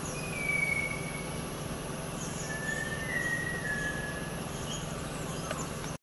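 Malabar whistling thrush singing: slow, clear, human-like whistled notes that slide slightly downward. One long note comes near the start and a run of three linked notes follows in the middle, over faint high chirps and a steady low hum.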